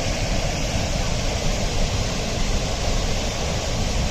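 Steady loud rush of water falling at Arvalem waterfall, a dense, even roar with no breaks.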